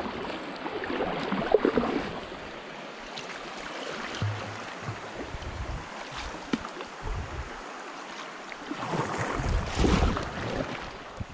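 Double-bladed kayak paddle strokes splashing and dripping in river water, with water lapping at the hull. Louder splashy stretches about a second in and again near the end, with some wind rumbling on the microphone.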